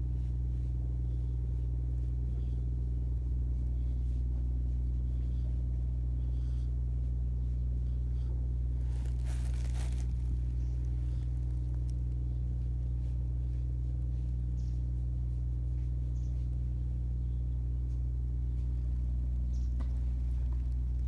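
Domestic cat purring steadily as it is stroked, a continuous low hum close to the microphone, with a brief rustle of hand or fur about nine seconds in.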